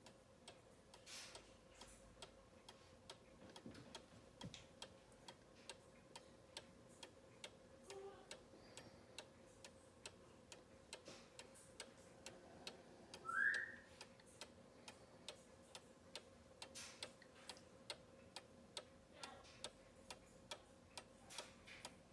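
Weight-driven German cuckoo clock ticking steadily and faintly, about two ticks a second. A short rising squeak comes a little past the middle.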